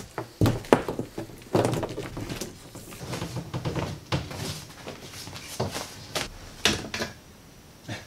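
Irregular knocks, thumps and rustling from handling an extension cord in a small wooden room, with a few sharper clicks spread through.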